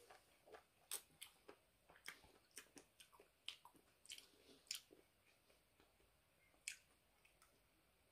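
Faint mouth sounds of someone chewing juicy mango flesh: irregular wet clicks and smacks, several a second, thinning out after about five seconds.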